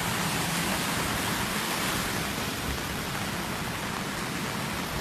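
Steady rushing of floodwater running along a street curb and through the roadside ditches.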